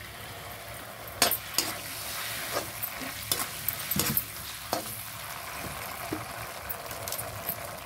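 Sliced capsicum, green chillies and garlic sizzling in hot oil in a metal kadhai as tomato sauce goes in. A perforated metal skimmer stirs them, scraping and knocking sharply against the pan about half a dozen times.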